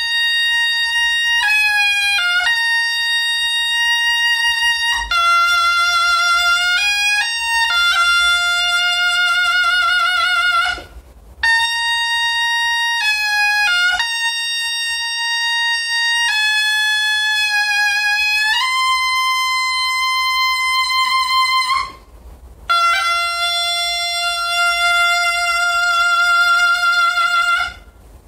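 Taepyeongso, the Korean conical double-reed shawm with a brass bell, playing a solo melody of long held notes with wavering vibrato and bent ornaments. It plays in three phrases, with short breaks about a third and two thirds of the way through.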